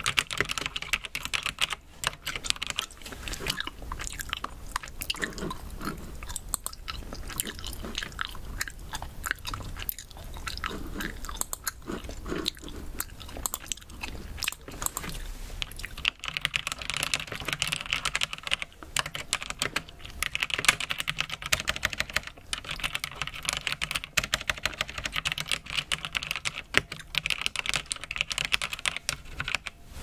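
Close-up chewing of Haribo mini gold-bear gummies, with wet chews and bites, mixed with keystrokes on a brown-switch mechanical keyboard. The keystrokes are quiet clacks typed in runs.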